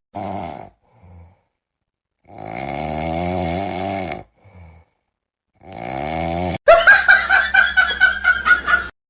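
Snoring: drawn-out rasping breaths, each about one to two seconds long, with silent pauses between them. Near the end a louder, different sound with a quickly wavering pitch cuts in.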